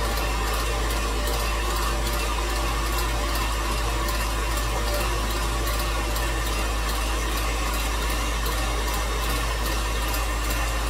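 Electric tilt-head stand mixer running steadily at slow speed, its beater working a creamed butter-and-sugar batter as eggs are added one at a time.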